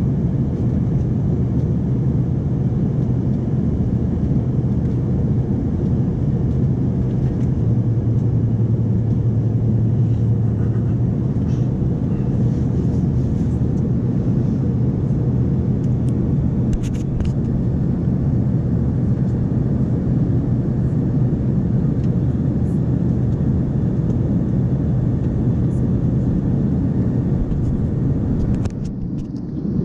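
Steady cabin drone of an Embraer 145 regional jet in flight: its two rear-mounted turbofans and the airflow over the fuselage make a low, even hum. It dips briefly near the end.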